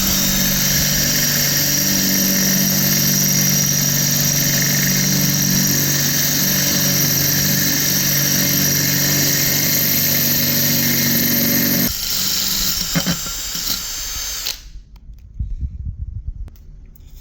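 Battery drill with a carbide bit grinding steadily through a thick tile, drilled from the underside to finish the hole through; the motor stops abruptly about twelve seconds in, followed by a few light knocks.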